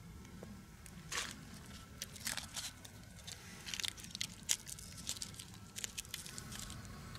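Dry birch bark crinkling and crackling in the hands as rolled strips are worked into the split top of a stick for a torch head, a run of irregular small crackles and snaps.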